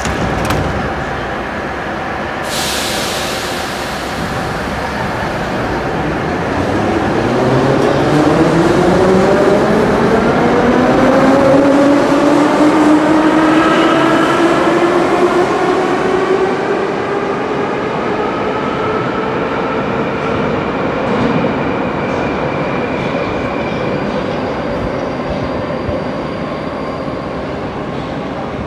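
Moscow Metro Ezh3 / Em-508T train pulling away. A short burst of air hiss comes about two and a half seconds in, then the traction motors' whine rises steadily in pitch as the train accelerates, levelling off after about sixteen seconds, over continuous wheel-and-rail rumble.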